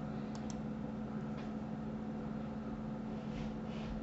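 Steady low electrical hum and hiss of the recording setup, with two faint clicks about half a second in and another soft click a second later.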